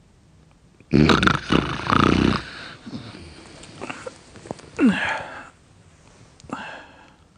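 Person snoring loudly in sleep: a long rasping snore about a second in, softer breathing noises, then a shorter snore near five seconds that opens with a falling tone.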